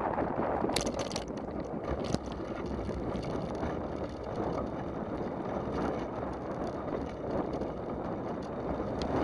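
Bicycle riding on a wet asphalt road: a steady rush of tyre hiss and wind on the microphone, with a few short rattling clicks about a second in and again near two seconds.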